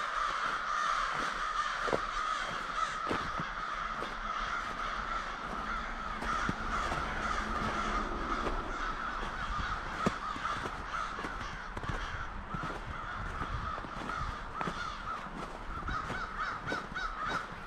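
A large flock of American crows cawing, with many birds calling over one another in a continuous din.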